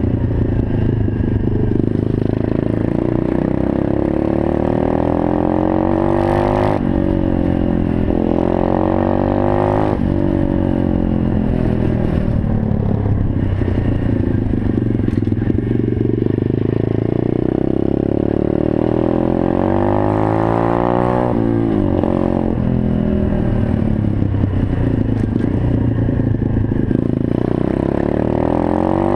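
125cc single-cylinder four-stroke pit bike engine (a Stomp CRF70-style bike) running under way. The revs climb and then drop sharply several times, as the bike accelerates and shifts up or backs off the throttle.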